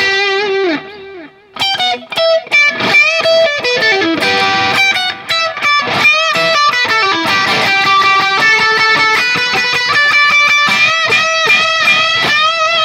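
Telecaster electric guitar through a Valeton GP200 multi-effects unit, a crunch tone boosted with a TS9 overdrive and a touch of delay, playing a lead line of single notes with quick picked runs and string bends. It drops off briefly about a second in, then picks back up.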